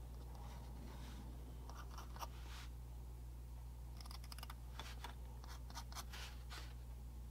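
Faint scratching and ticking of a steel dental pick against tiny styrene vent boxes and photo-etched metal grilles on a wooden bench, in two short clusters, one about two seconds in and a longer one in the second half, over a steady low hum.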